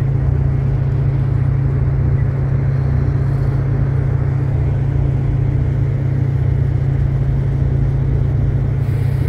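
A ship under way, heard from its open deck: a steady low rumble with an even rushing noise over it.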